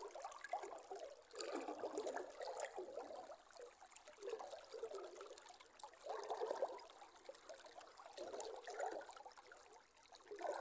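River water gurgling and lapping in uneven surges every second or two.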